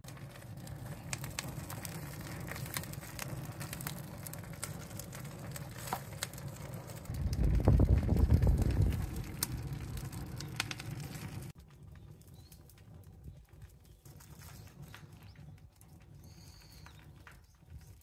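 Drum-can fire of cardboard and fallen leaves and twigs crackling with many sharp snaps, with a loud low rumble about seven seconds in. After a sudden drop to a quieter outdoor background, a bird chirps briefly near the end.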